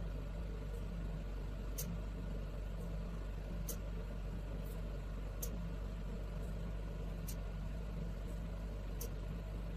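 C57 VelaShape-type vacuum roller machine running with a steady low hum, with a sharp click about every two seconds as its handpiece suction is pulsed by hand in manual mode.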